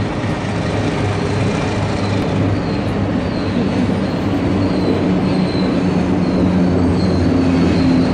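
Alco diesel freight locomotives approaching and passing slowly, their engines running with a steady low hum that grows gradually louder. A faint high wheel squeal comes in from about two seconds in.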